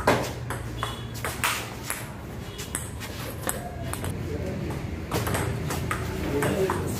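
Table tennis rally: the ball clicking sharply off the paddles and bouncing on the table, a string of quick knocks about half a second to a second apart, over a low steady hum.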